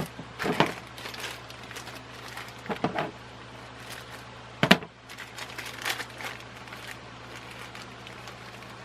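Small hardware and parts being handled: irregular light clicks and knocks, with one sharper knock about halfway through, over a steady low hum.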